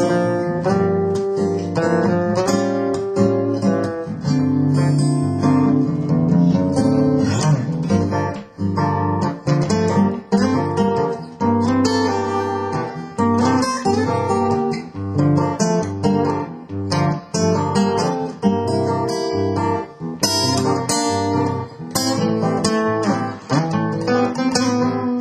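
Acoustic guitar music, plucked and strummed, running as a continuous piece.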